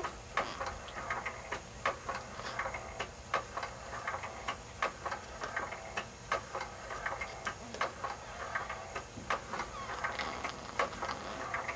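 A sleeping baby's breathing, a soft hiss dotted with small irregular clicks and crackles, a few a second.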